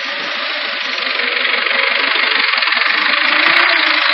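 Forklift engine running, growing steadily louder.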